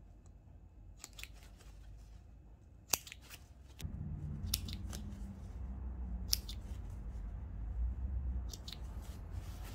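Seam ripper cutting the top-stitching threads of a blazer's pocket lining, a sharp tick as each thread is cut, about nine times, often in pairs. A low rumble of handling starts about four seconds in.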